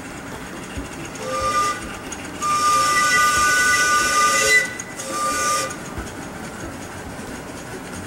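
Scale live-steam locomotive's chime whistle blown three times: a short blast, a long one and another short one, each a chord of several notes with a breathy hiss.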